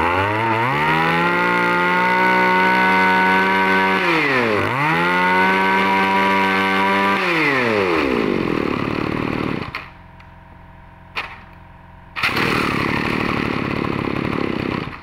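Small two-stroke engine of an electric-start BC2600 brush cutter revving up to a steady high speed. It drops back briefly about four and a half seconds in and revs up again, then the throttle is let go and it winds down and falls silent around ten seconds in. A loud steady rushing noise follows for the last three seconds.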